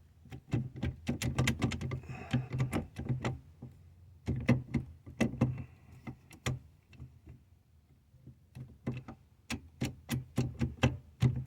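Irregular clicks, knocks and rattles of plastic and metal parts in a Ford steering column, wiggled and pulled by hand as a stuck turn signal module piece refuses to come out. They thin out in the middle, then pick up again.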